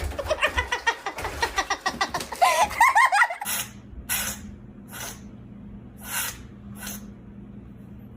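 Rapid high-pitched vocal sounds for about three seconds, then a series of five short, sharp sneezes from an animal spread over the next few seconds, over a low steady hum.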